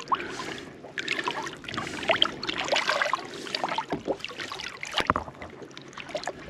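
Sea water splashing and trickling at the side of a small boat as an undersized fish is held in the water to revive it before release. The sound is a run of small, irregular splashes.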